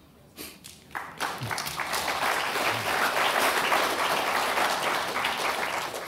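Audience applauding: a few scattered claps, then full applause from about a second in that holds steady and dies away at the end.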